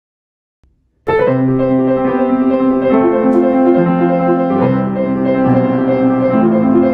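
Intro music played on a keyboard, held chords that change every second or so, starting about a second in after silence.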